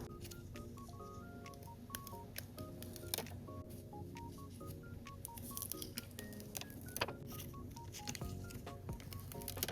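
Background music: a simple melody of plain, beep-like electronic tones stepping from note to note. Scattered sharp clicks and taps from the collage work sound over it.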